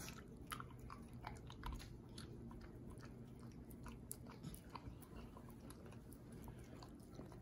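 A Border Collie licking and smacking sticky peanut butter off a metal spoon: faint, irregular wet clicks of tongue and mouth.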